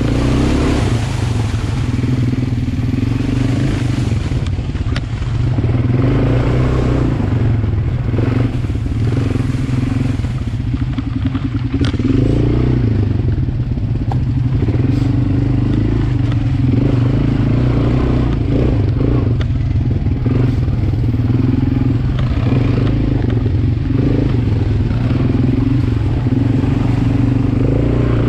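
ATV engine running steadily at low speed while riding over a rough dirt trail, with a few sharp knocks and rattles from the bouncing machine.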